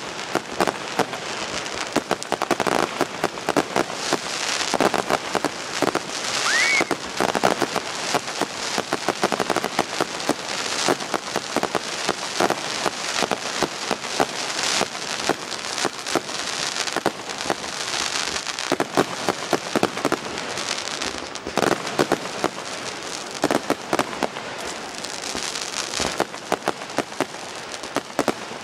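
Fireworks going off: a dense, continuous crackling of many small pops. A brief rising whistle comes about six and a half seconds in.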